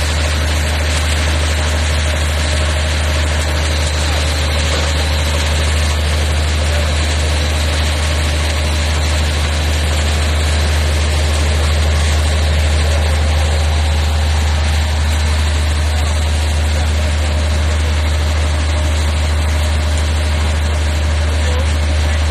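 Fishing boat's engine running steadily with a strong low drone, over a steady rush of water along the hull as the boat moves.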